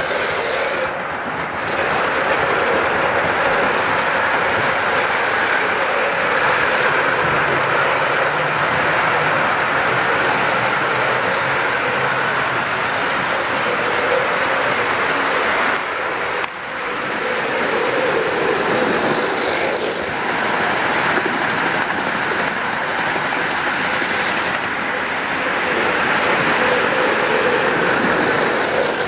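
Large-scale model train running on its layout: a steady, even mechanical running noise of the locomotive and wheels on the track, with a few brief dips in loudness.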